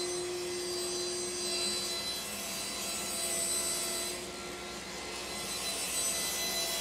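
A power tool's electric motor running steadily, a whine with a rushing hiss, dipping a little in level about four seconds in.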